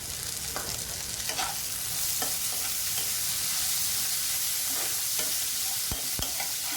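Cluster beans sizzling in hot oil in a pan, the hiss growing louder about two seconds in, with a utensil scraping and tapping against the pan now and then as the beans are stirred with the spices.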